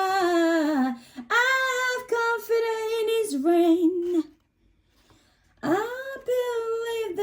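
A woman singing a religious song in long, held, sliding notes. She breaks off for about a second past the middle, then carries on singing.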